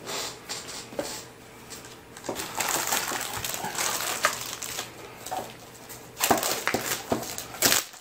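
Clear plastic wrapping crinkling and rustling as a wrapped keyboard is handled and lifted, with a rustle of paper at the start and the loudest crinkling near the end.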